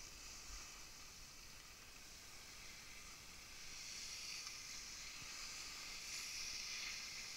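Faint hiss of skis sliding over snow, growing a little louder about halfway through.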